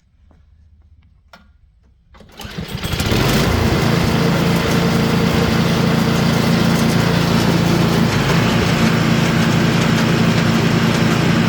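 MTD snowblower's small engine starting about two seconds in, rising to a steady run within about a second, after a few faint clicks.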